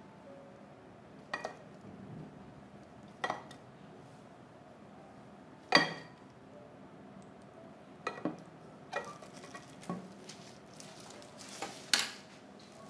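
Plastic crinkle cutter pressed down through a block of agar-agar jelly, its wavy blade knocking against the cutting board: about ten sharp knocks, the loudest about six seconds in and again near the end.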